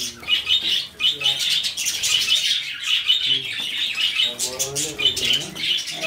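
A flock of budgerigars chattering and chirping together without a break: many fast, high chirps overlapping.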